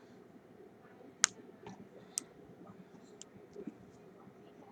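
Small clicks and ticks of a hook pick working the pin stack of a Brinks 527 padlock held under a tension wrench. A sharp click comes just over a second in, another about a second later, and fainter ticks are scattered between.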